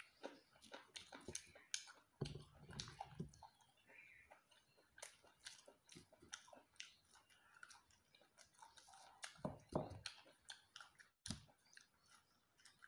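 A person chewing crisp raw greens close to the microphone: irregular soft crunches, with a couple of low muffled sounds from the mouth.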